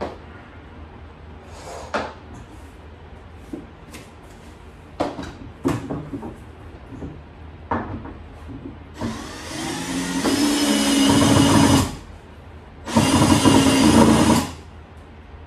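Cordless drill driving screws into the shelving unit's panels: a few knocks and clicks of the panels being handled, then two runs of the drill motor, the first about three seconds long and rising in pitch as it spins up, the second about a second and a half.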